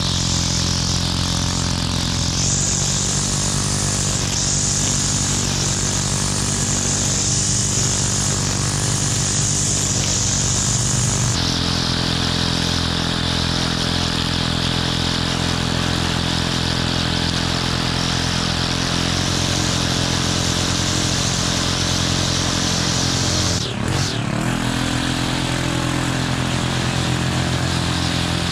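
Gas string trimmer engine running at high throttle while the line cuts grass along a sidewalk edge, its pitch shifting a couple of times. A few seconds before the end the engine drops briefly and picks back up.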